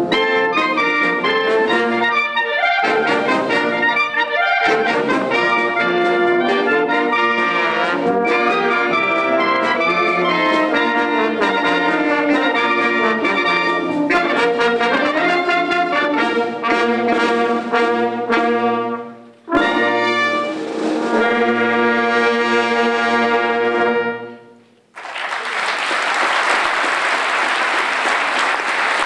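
Military brass band with clarinets playing a piece that ends about three-quarters of the way through on long held final chords. After a brief silence, audience applause starts.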